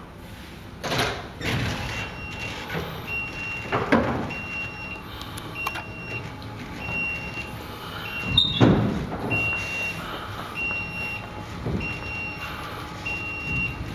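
Ilmonte motorised telescopic grandstand extending, its rows rumbling out across the floor with heavy clunks about a second, four seconds and eight and a half seconds in. A high warning beeper sounds about every three-quarters of a second while it moves.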